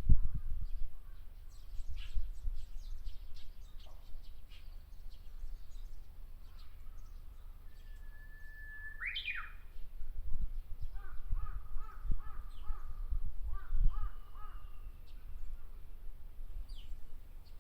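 Japanese bush warbler singing its song once, about eight seconds in: a long held whistle that breaks into a quick rising flourish. Other birds call with scattered short notes and a run of repeated calls, over a low rumble that comes and goes.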